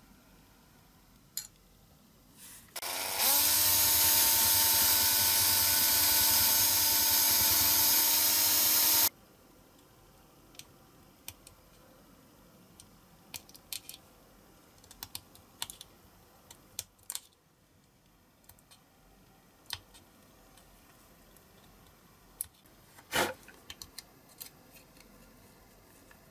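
A small electric power tool spins up, runs steadily for about six seconds and cuts off. Either side of it come faint scrapes and clicks of hobby-knife work on plastic model parts, with one sharper click near the end.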